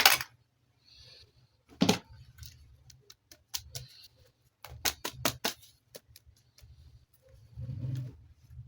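Sharp clicks and knocks from plastic toys and packaging being handled: a loud knock at the start, another about two seconds in, a quick run of clicks around the middle, and a duller low thump near the end.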